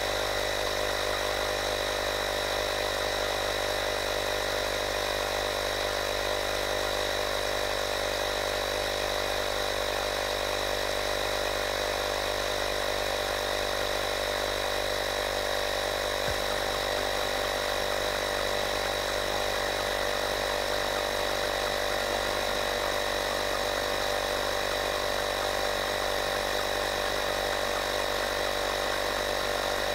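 Woscher 802D portable electric tyre inflator's compressor running steadily as it pumps up a car tyre, a steady hum with many overtones. The tyre is mid-fill, its pressure climbing through the mid-20s PSI toward a 32 PSI auto-shutoff.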